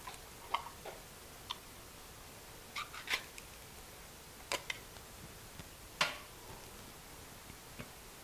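A spoon clinking and scraping against the inside of an opened metal soup can as thick condensed soup is worked out into a bowl: a few short, scattered clicks and scrapes, the loudest about three seconds in and again about six seconds in.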